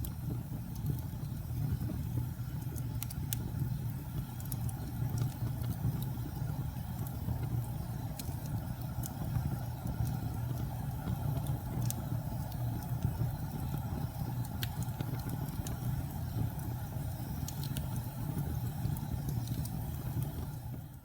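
Wood logs burning in a fireplace: a steady low rumble of the fire with scattered sharp crackles and pops.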